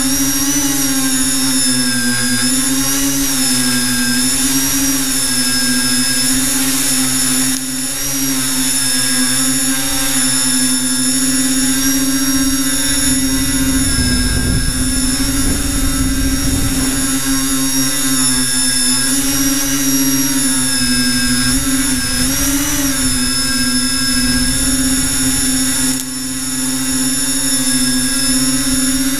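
Brushless electric motors and propellers of an FPV multirotor drone whining steadily in flight, heard from its onboard camera. The pitch rises and dips with the throttle, and there is a burst of wind rumble about halfway through.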